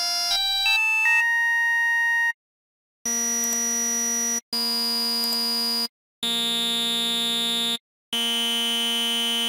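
Native Instruments Massive software synthesizer playing a buzzy tone through its Scream filter. A quick run of rising notes ends on a note held for about a second. After a short pause the same note sounds four times, each about a second and a half long, with a bright ringing peak that is duller on each repeat as the keytracked filter is changed.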